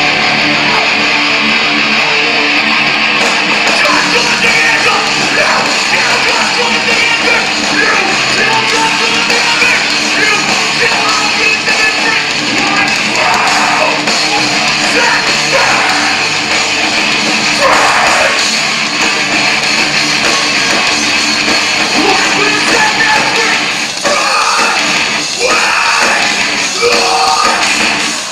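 Hardcore metal band playing live: loud distorted electric guitars and drums, with a shouted vocal.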